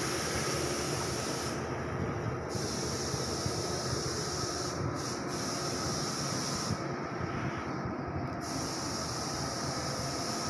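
Steady low mechanical rumble with a constant hiss over it, unchanging throughout.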